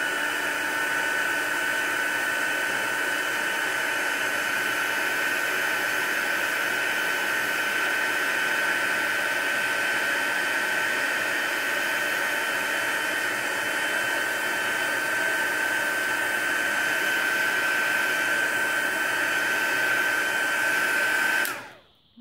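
Handheld craft heat gun running steadily, a high motor whine over a rush of blown air; it switches off shortly before the end.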